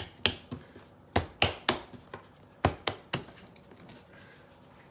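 Hands slapping and pressing a ball of biscuit dough down on a floured wooden board: sharp thuds in three quick groups of three, then a pause.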